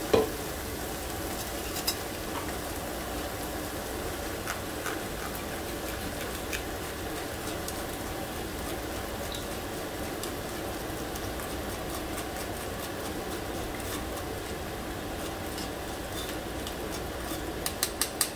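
Steady sizzle of nopales and red chile sauce cooking in an oiled frying pan, with a spoon stirring and scraping in a wire mesh strainer as the sauce is pressed through. There are light taps of the spoon on the strainer at the start and a quick run of them near the end.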